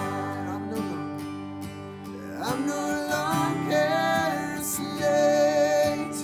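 Worship song: strummed acoustic guitar with a sung melody over it.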